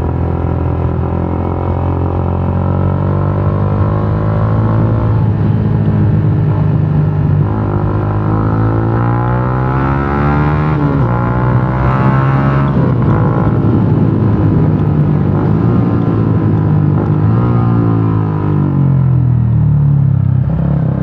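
Yamaha Sniper 150's single-cylinder four-stroke engine running through a gutted stock exhaust ('kalkal' pipe) while being ridden. The engine pitch climbs and drops several times as the throttle is opened and eased off.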